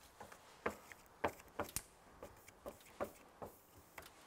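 Fingers pressing and rubbing a vinyl decal onto a fire engine's metal cab door, giving about eight light, irregular taps and clicks.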